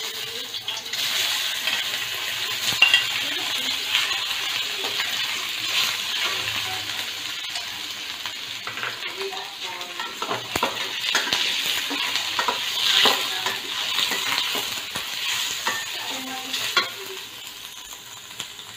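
Cubed pork sizzling in hot oil in a stainless-steel wok as it browns, with a metal spatula scraping and clicking against the pan while it is stirred. The sizzle starts at once as the pork goes in and eases a little near the end.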